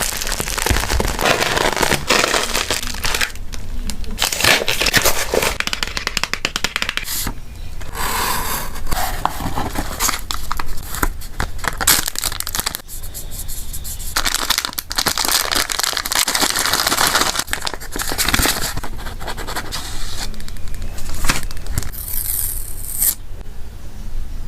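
Close-up handling of packaging: plastic and paper crinkling, with tearing and scraping sounds and many small clicks.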